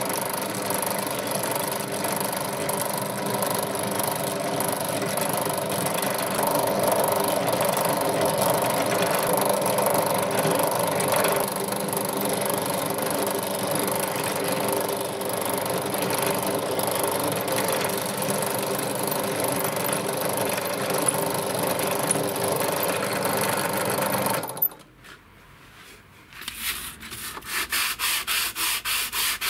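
Drill press running steadily, its bit boring through the steel tang of a knife made from an old saw blade and into the wooden handle scale beneath. It stops about 24 seconds in, and after a short pause a small piece is rubbed back and forth by hand on a sheet of sandpaper in quick, even strokes.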